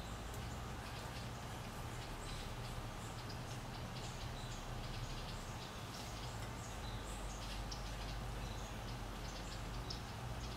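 Quiet outdoor background: a low steady hum with faint, scattered high chirps and ticks.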